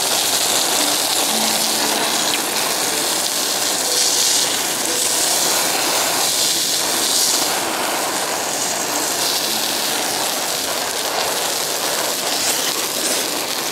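Meat and vegetables sizzling on a grill plate over a portable gas canister stove: a steady, fairly loud sizzling hiss.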